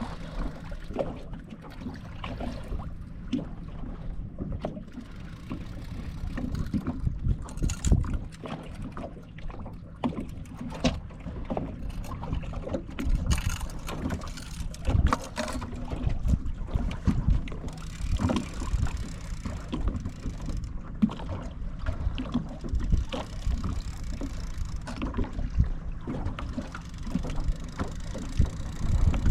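Sounds aboard a fishing boat on open water: wind on the microphone, irregular knocks and bumps, and a low steady hum underneath.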